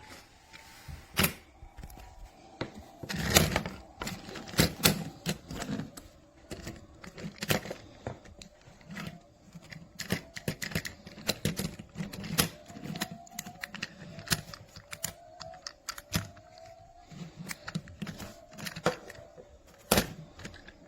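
Irregular clicks and clacks of small die-cast metal and plastic toy construction vehicles being handled and set down on a hard surface, with a faint rising tone recurring in the background.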